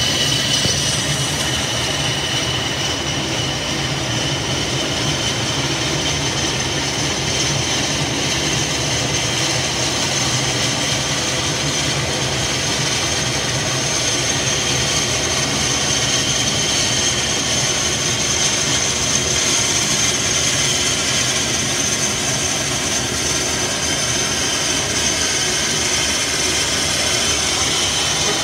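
Steady aircraft turbine noise on an airport apron: a high, even whine over a broad rumble that does not change.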